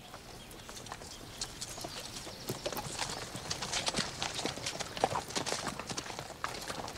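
Several horses' hooves clip-clopping at a walk, an uneven patter of hoof strikes that grows louder about two and a half seconds in.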